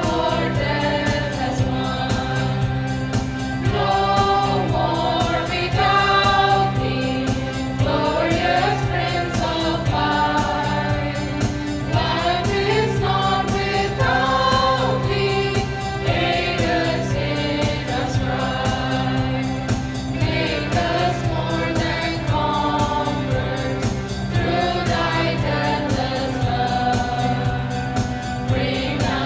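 Mixed choir of adults and children singing a Christian song in unison over steady sustained notes from an electronic keyboard.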